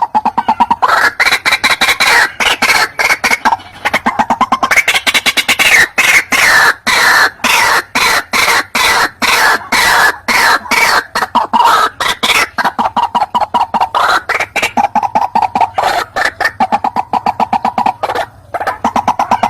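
White-breasted waterhen (ruak-ruak) lure call: a long, loud run of fast, harsh repeated notes that swell up in pitch and fall back again, with a brief break near the end.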